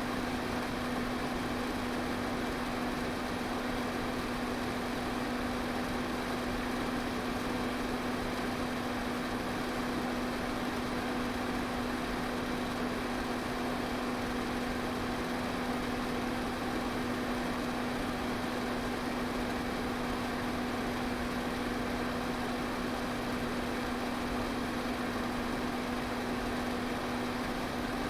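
Electric fan running steadily: an even rush of air with a constant low motor hum, unchanging throughout.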